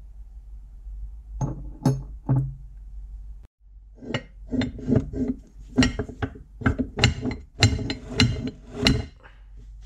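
Rusty iron parts of an old hand-crank meat grinder clinking together. First come three ringing metal clinks as the cross-shaped cutting knife is handled on its square shaft. Then, after a short break, there is a string of irregular metallic knocks and clanks, two or three a second, as the crank handle is worked loose on the end of its shaft.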